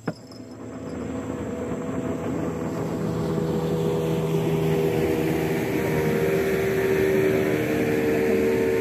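A motorboat engine approaching on the water. It grows louder over the first few seconds, then holds a steady hum with several steady tones.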